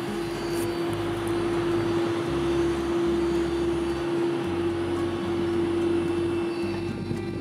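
Airbus A330-300 taxiing, its twin General Electric CF6-80E1 turbofans running at idle: a steady rushing noise with a steady hum.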